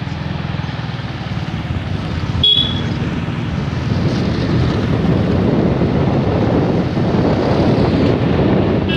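Wind rushing over the microphone and road noise from a moving motorbike, growing louder over the last few seconds. A single sharp click about two and a half seconds in.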